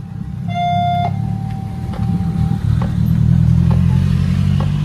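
Minivan engine running as the van drives over the level crossing and passes close, its low hum growing louder in the second half. A short high beep sounds about half a second in.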